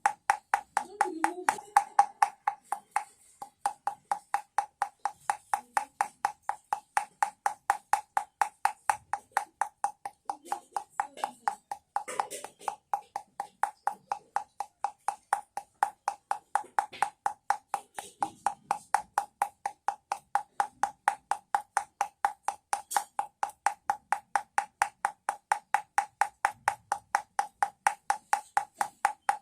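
Homemade rattle, a container shaken in a very even rhythm, giving sharp knocks with a hollow pitched ring about three times a second.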